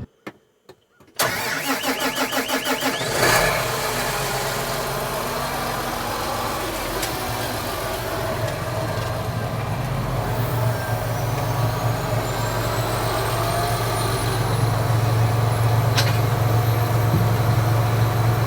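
A vehicle engine is cranked by its starter, turning over about five times a second, and catches after about two seconds. It then settles into a steady idle that grows slightly louder, with a faint high whistle rising through the middle.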